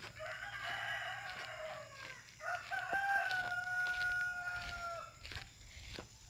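A rooster crowing: one long crow of about five seconds that ends on a held, steady note. Footsteps on a dirt street are heard alongside.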